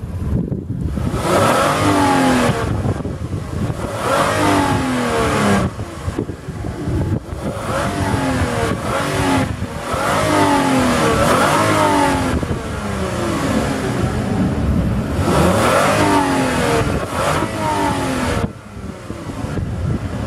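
A 2006 Toyota Mark X 250G's 2.5-litre V6 being revved while stationary, heard from the rear of the car: the engine note rises and falls back several times, with short drops toward idle between the blips.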